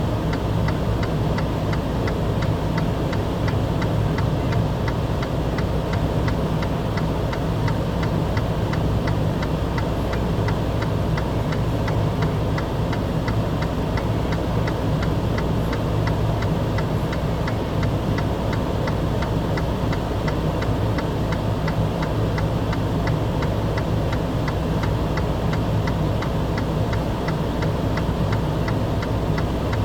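A vehicle engine running steadily, with a fast, regular ticking over it.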